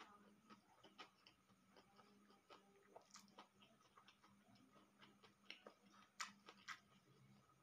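Near silence broken by faint, irregular crisp clicks of eating: a mouthful being chewed while a piece of raw cucumber is pressed onto paper to pick up crumbs. A faint steady hum lies underneath.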